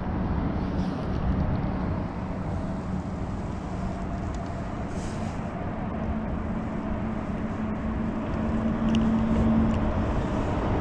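Steady low rumble with a droning mechanical hum, like an engine running. It grows a little louder in the second half.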